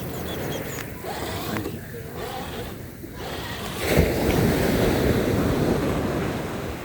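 Ocean surf and wind on the microphone, with a louder rush of noise starting about four seconds in.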